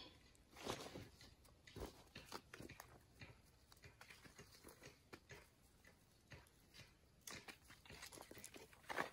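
Footsteps crunching and rustling in dry leaf litter, with scattered quiet crackles as the ground is trodden.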